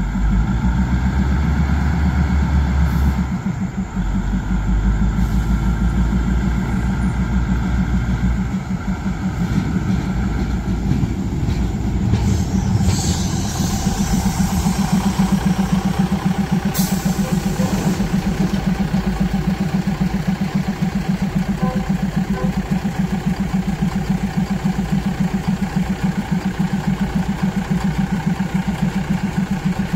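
Diesel engine of a standing passenger train idling with a steady, rapid throb, with a brief hiss about twelve seconds in.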